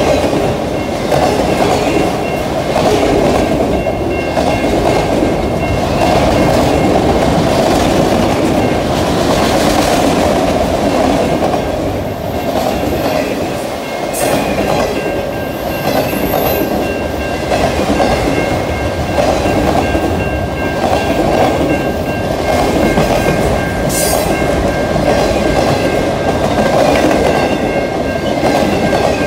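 Freight train cars rolling steadily past, wheels clicking over the rail joints, with faint high-pitched whines coming and going above the rumble.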